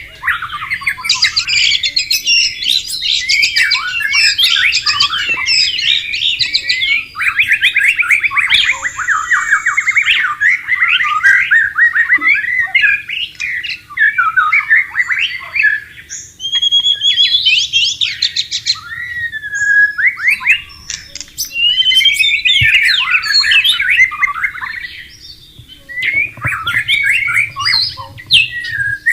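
White-rumped shama (murai batu) singing a loud, fast, varied song of rapid trills, whistles and harsh notes, delivered in long bursts with brief pauses about halfway through and again near the end.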